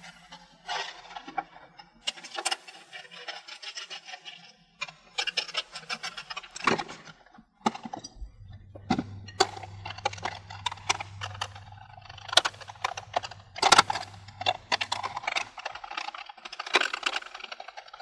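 Handling noise of a clear plastic bottle being worked with small hand tools: scattered crackles from the thin plastic and sharp clicks of a screwdriver and metal parts. A low steady hum comes in about eight seconds in and stops a few seconds before the end.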